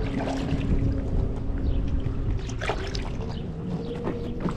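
1997 Arctic Cat TigerShark Monte Carlo 1000 personal watercraft's two-stroke engine running with a steady note, with water splashing and wind on the microphone.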